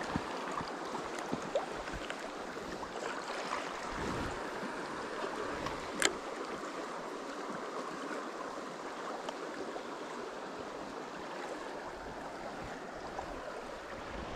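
Fast river water flowing, a steady rush, with a few small clicks and one sharper click about six seconds in.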